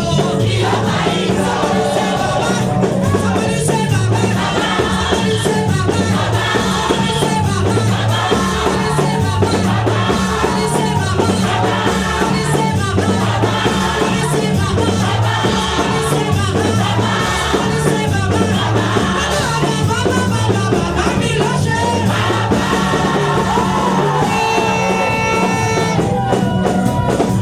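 A gospel choir singing with band accompaniment and a repeating bass line, holding a long chord near the end.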